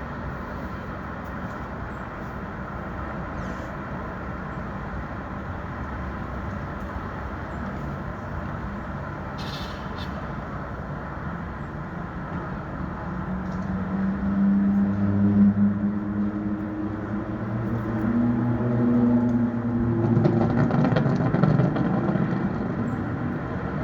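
City street traffic: a steady wash of passing cars, with a heavy vehicle's engine growing louder about halfway through and running close by until near the end.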